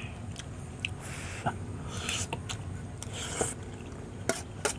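Quiet close-up eating sounds: soft wet chewing with a few small clicks.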